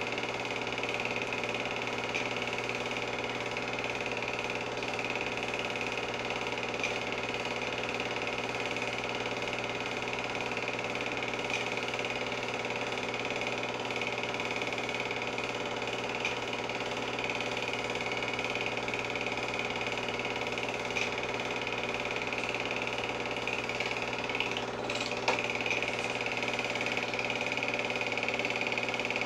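Home-movie film projector running, a steady mechanical whirr and clatter from its motor and film-advance mechanism. There is one brief click near the end.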